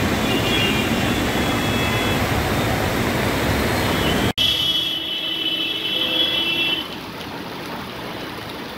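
Heavy rain pouring on a waterlogged road, with traffic moving through the flood. About halfway through the sound cuts abruptly to a quieter street, where a vehicle horn sounds for about two seconds.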